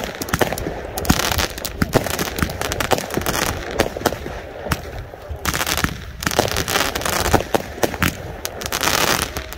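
Fireworks going off: many sharp bangs and crackling pops in quick succession, some in dense rapid strings.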